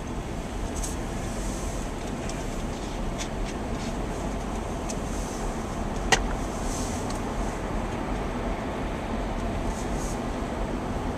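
Steady road and engine noise heard inside a moving car driving in city traffic, with a single sharp click about six seconds in.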